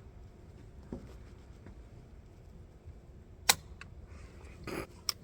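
A few sharp metallic clicks from a .22 rifle's action being handled and the trigger pulled without a shot: the rifle will not fire because it has not been cocked. The loudest click comes a little past the middle.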